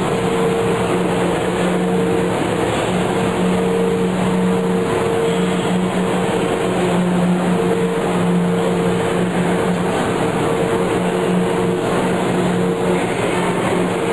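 Loud, steady drone of machinery in a railway tunnel under construction, with a low hum and a higher hum running through it.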